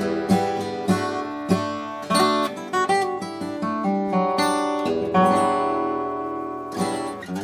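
Washburn Timbrewood WD-48S acoustic guitar being played, picked notes and chords ringing one after another, on a guitar just fitted with a new bone saddle and set up.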